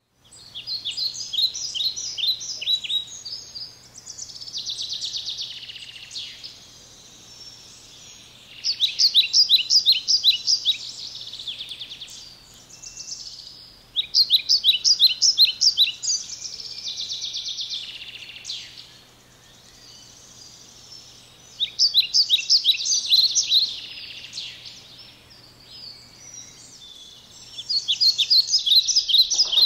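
A songbird singing the same song five times, about every seven seconds: a fast run of sharp high notes, then a softer, buzzy trill.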